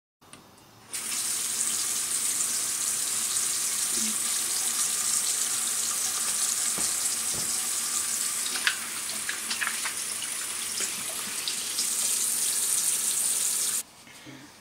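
Water running hard from a bathroom faucet into the sink while hands are washed under the stream. It starts about a second in and cuts off suddenly near the end.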